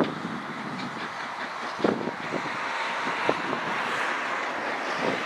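Steam tank locomotive No. 1310 working a coach train: a steady hiss of exhaust and running gear, with a few irregular sharp knocks as it approaches.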